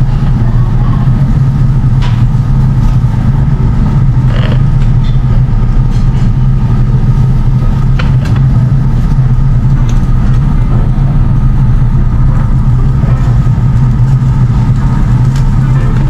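Tabletop yakiniku grill running with meat on it: a loud, steady low hum with no change in pitch, and a few faint clicks.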